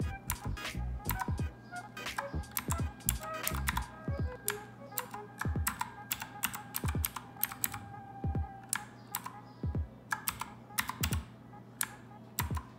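Key presses on a GAMDIAS Hermes E3 60% mechanical keyboard: irregular sharp clicks, several a second with short pauses, as keys are pressed to cycle its lighting effects. Music plays underneath.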